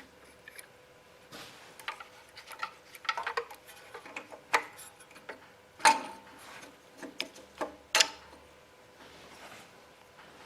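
Light metallic clicks and clinks of hand tools and small engine parts as the carburetor is refitted to the generator, with two sharper knocks about six and eight seconds in.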